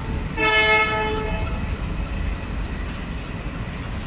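Diesel locomotive's horn sounding one blast of just over a second, about half a second in, over the steady low rumble of the express train arriving.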